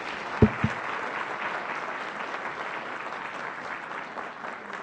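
Audience applauding steadily, easing off slightly near the end. Two dull low thumps land about half a second in.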